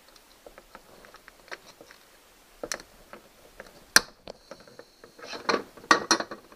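Wire rudder cable being worked with cutting pliers: small clicks and handling ticks, then one sharp snap about four seconds in as the cable is cut, followed by a run of clicks and rattles from the pliers and cable.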